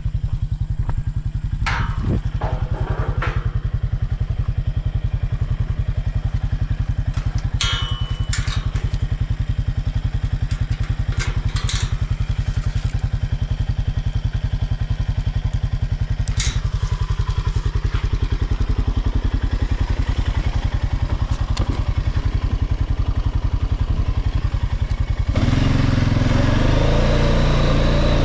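ATV engine idling steadily while a tube-steel farm gate is swung shut and fastened with a chain and hook, with several sharp metal clanks and rattles. Near the end the engine revs up and the ATV pulls away.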